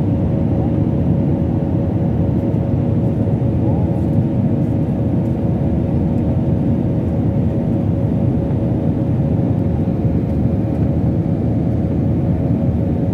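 Cabin noise inside an Airbus A320-family jet airliner in flight: a constant low rumble of engines and rushing air, with a few steady humming tones over it.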